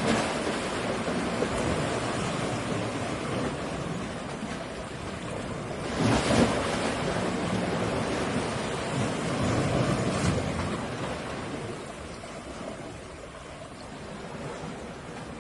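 Sea waves washing in, a continuous surf wash with a louder wave breaking about six seconds in and another around ten seconds, then easing off toward the end.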